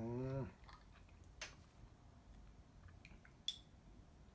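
A short hummed voice at the start, then a few faint, scattered clicks and taps of a utensil against a bowl, the sharpest about a second and a half in and again near the end.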